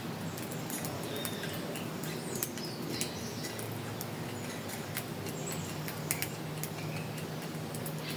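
Wild birds giving scattered short, high chirps and clicks over a steady low hum.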